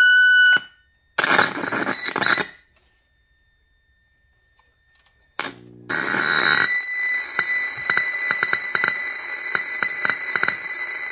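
Failing amplifier IC in an electronics-kit oscillator circuit sounding through its small speaker: a steady high tone cuts off, a burst of crackling noise follows, then about three seconds of silence and a short buzz. It then settles into a steady shrill high tone with irregular crackling clicks, the buzzing and strange sounds of the IC dying.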